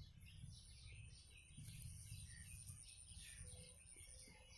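Faint birds chirping over and over in short repeated notes, with a steady thin high tone behind them.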